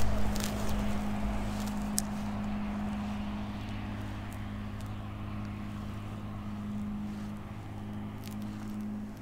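A steady low motor-like hum, with a few light clicks in the first couple of seconds.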